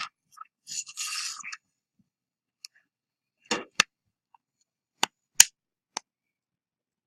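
Plastic pry tool scraping along the seam of a Galaxy S4's plastic housing, then sharp clicks as the housing's snap clips pop apart, about five in all.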